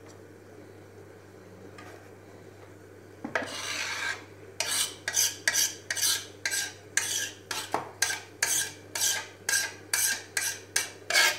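Hand scraping chopped dill across a wooden cutting board into a plastic bowl: one longer scrape a little after three seconds in, then quick rasping strokes, about two a second, until the end.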